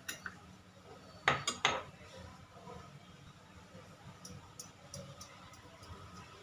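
Cutlery clinking against a dish while sauce is spooned onto bread: three sharp clinks just over a second in, then a few fainter ticks.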